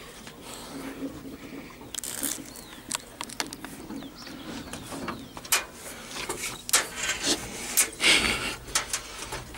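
Scattered clicks and knocks of handling and work in and around a T-150K tractor cab, with a few short bird chirps in the first half.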